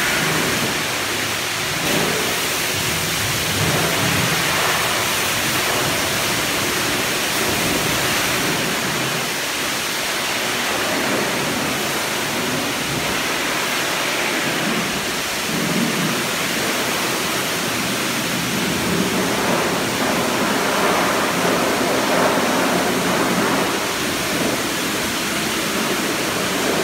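High-pressure car-wash wand spraying water onto a car and the wet concrete floor: a steady hiss of spray and splashing that swells and eases a little as the jet moves.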